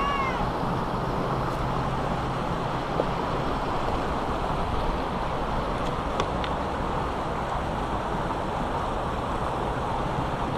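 Small mountain creek rushing steadily over rocks. At the very start comes one short high call that rises and falls in pitch.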